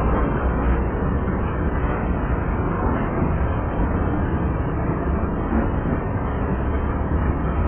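Freight train cars rolling past at close range: a steady, loud rumble of steel wheels on the rails as tank cars and covered hoppers go by.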